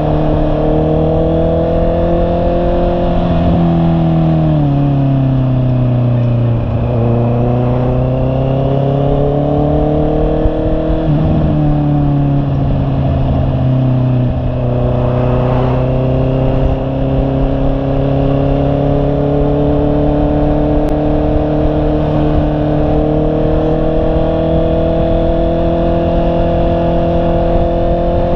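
Honda CB650R's inline-four engine under way, its pitch climbing as it pulls and dropping sharply about four times at gear changes, with wind rush over the microphone.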